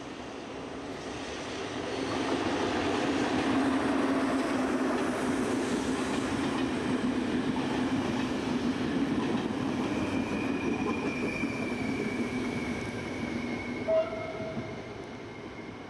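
Electric locomotive and double-deck passenger coaches passing close by on the rails: a rushing rumble of wheels and cars that swells over the first two seconds, holds, then fades as the train goes. A thin, steady high tone rides over it for the last few seconds, and a brief, sharp tone sounds once about fourteen seconds in.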